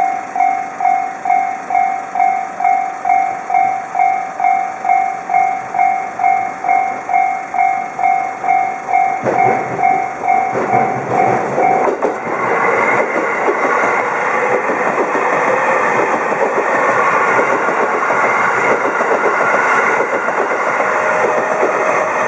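Japanese level-crossing warning bell ringing, a two-tone ding about twice a second, while a train on the JR Narita Line comes through. The train noise swells from about nine seconds in, the bell stops about twelve seconds in, and the train goes on clattering past.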